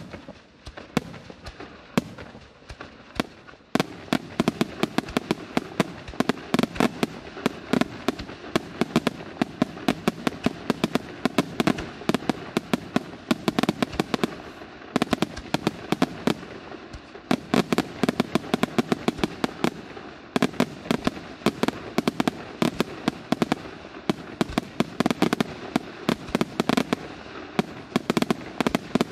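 Aerial firework shells bursting in a fast, continuous barrage of bangs, sparse for the first few seconds, then dense from about four seconds in.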